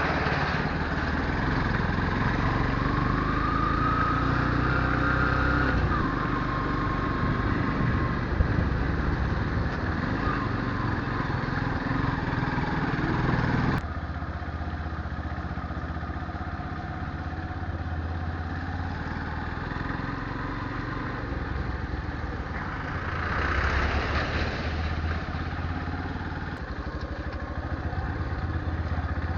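Motorcycle engine running steadily, with an abrupt drop in the sound about halfway through.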